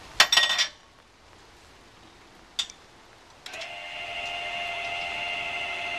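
Electric tongue jack on a travel trailer starts about three and a half seconds in and runs with a steady motor whine, raising the trailer tongue off the tow vehicle's hitch ball. A short clatter comes just after the start and a single click comes before the motor starts.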